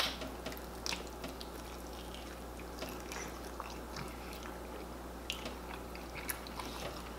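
Open-mouthed chewing and wet lip-smacking of people eating fufu with egusi soup by hand, with scattered short smacks and clicks, the sharpest one right at the start, over a steady low room hum.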